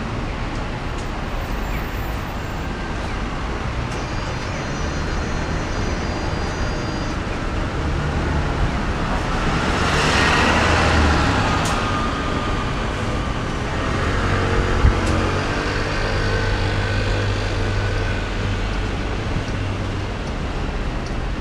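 Road traffic at a busy intersection: a steady hum of tyres and engines, with a vehicle passing close about ten seconds in. A heavy vehicle's engine then drones for several seconds, with a single sharp knock about fifteen seconds in.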